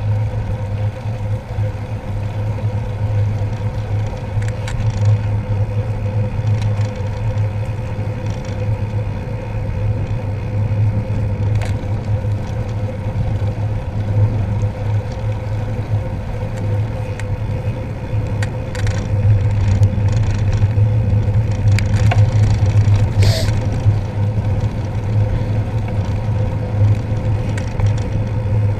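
Steady low rumble of wind and road vibration picked up by a camera on the handlebars of a moving bicycle, with a faint steady hum and a few sharp clicks now and then.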